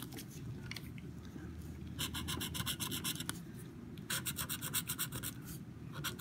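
Plastic scratcher tool scraping the scratch-off coating from an instant lottery ticket in rapid back-and-forth strokes, in two spells starting about two and about four seconds in.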